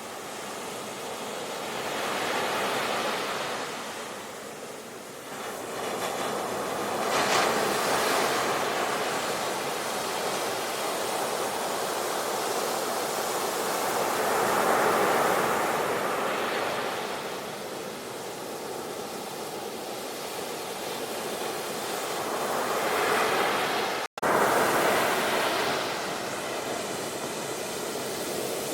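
Sea waves washing onto a shore, a steady rush that swells and falls back about four times as successive waves break. A split-second dropout to silence comes shortly before the end.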